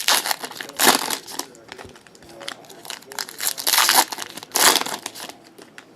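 Plastic trading-card pack wrappers crinkling and tearing as card packs are ripped open by hand. The loudest bursts come about a second in and again around four to five seconds in.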